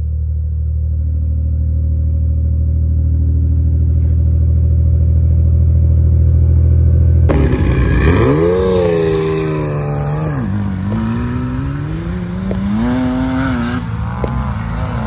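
Steady low engine and road drone of a vehicle cruising on the highway, heard from inside the cab. About seven seconds in it cuts abruptly to off-road sand buggies revving on the dunes, their engine pitch rising and falling several times.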